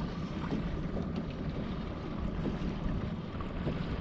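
Steady wind buffeting the microphone over choppy lake water lapping against a fishing boat's hull, with a few faint small ticks.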